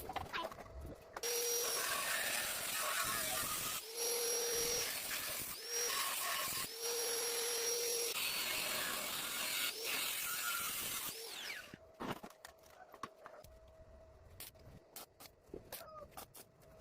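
A handheld power tool working metal in several runs over about ten seconds, with short breaks between them. It is followed by a scatter of light, sharp clicks and taps.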